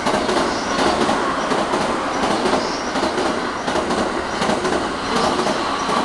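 JR E233-series electric commuter train rolling into the platform and slowing toward a stop, its wheels clicking steadily over the rail joints.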